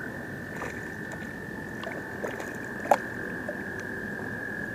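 American toads trilling: one long, steady, high trill that runs on without a break, with a slightly higher-pitched trill taking over right at the start. A single sharp tap sounds about three seconds in.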